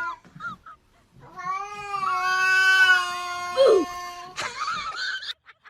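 A cat giving one long, drawn-out yowl lasting about three seconds, after the end of a shorter cry at the start. A short noisy burst follows near the end.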